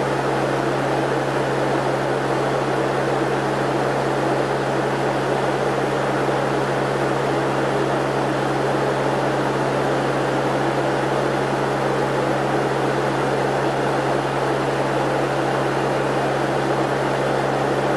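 Steady in-flight cabin drone of a Lockheed L-188 Electra in cruise, from its four Allison 501 turboprop engines and propellers: a constant low hum under an even rush of airflow noise.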